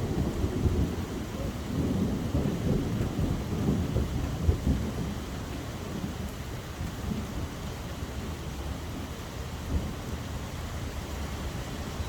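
Steady rain falling, with a low rumble underneath that is strongest for the first five seconds or so and then eases off.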